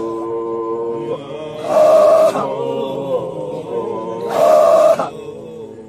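Group of voices chanting a Sufi dhikr (Qadiriyya digri) with long held notes, swelling twice into a louder chorus surge about two and a half seconds apart.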